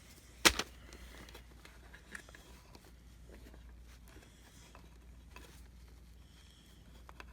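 One sharp click about half a second in, then a few faint ticks of small parts being handled while the vacuum's power cord is rewired.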